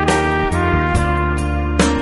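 Instrumental background music: a sustained melody with notes changing every half second or so over a steady low bass.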